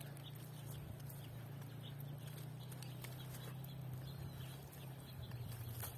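Faint rustling and small scattered taps of a nylon cast net being worked by hand to free tangled tilapia, over a steady low hum.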